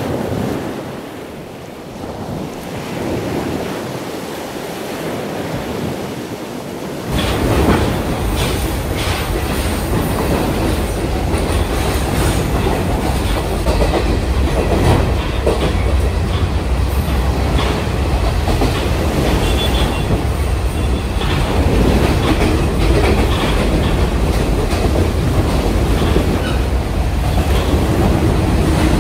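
Passenger train running, heard from inside a carriage with its door open: a steady rumble with wheels clacking over the rail joints. It comes in abruptly about seven seconds in, after a quieter stretch of softer noise.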